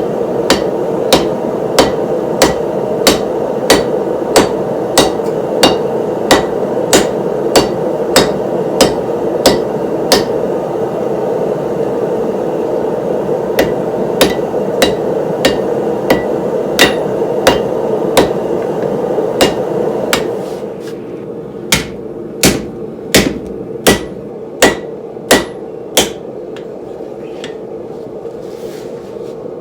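Steel being hammered by hand: runs of evenly spaced, ringing hammer blows, about three every two seconds, with short pauses between runs. A steady loud hum runs under the first runs and drops away about two-thirds of the way through, leaving the last blows clearer.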